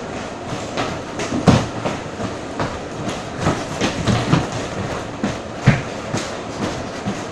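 Irregular thumps and knocks of people jumping and moving about on a floor, over a steady hiss. The loudest thumps come about a second and a half in and near six seconds.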